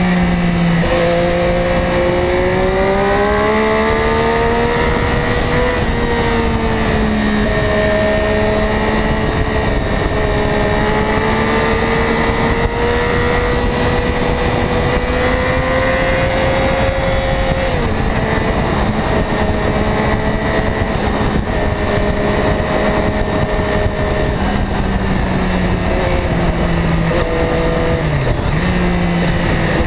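Ducati Diavel's V-twin engine under way on the road, heard from the bike itself over heavy wind rush: its pitch climbs steadily for long stretches, falls away sharply about eighteen seconds in, and changes several times in quick succession near the end.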